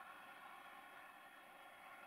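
Near silence: a faint, steady hiss with no distinct events.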